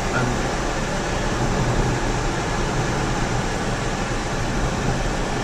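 Steady road and engine noise heard inside the cabin of a moving car: an even rush with a low rumble underneath.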